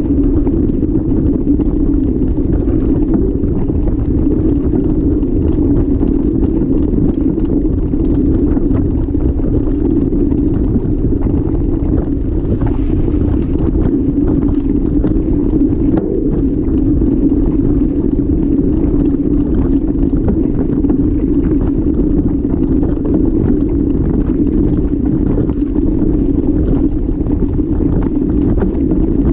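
Steady low rumble of wind and ride vibration picked up by an action camera mounted on a mountain bike rolling along a rough dirt track, with many small knocks and rattles from bumps.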